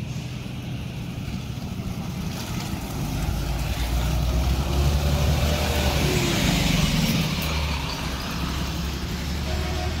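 Diesel coach engine running as a bus crawls past close by on a snowy road. Its engine drone and tyre hiss grow louder to a peak around the middle, then ease off as the next coach comes up behind.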